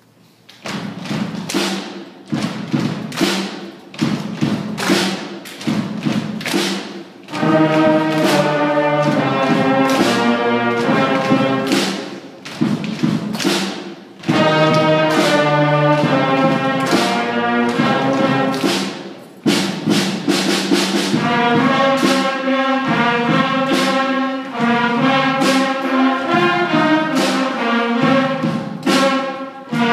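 Sixth-grade school concert band starting a piece: for the first several seconds strong percussion beats, about two a second, then about seven seconds in the brass and woodwinds come in together with full held chords.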